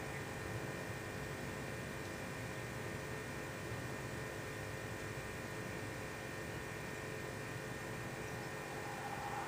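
Synthesized whooshing noise from SuperCollider playing through an Android phone's small speaker. It is swept low into a dull hum and starts to brighten again near the end.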